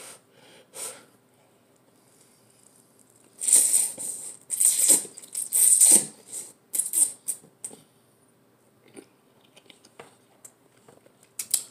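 A person slurping cup noodles, sucking them in with a run of loud, hissy slurps a few seconds in, then faint smacking and a short slurp near the end.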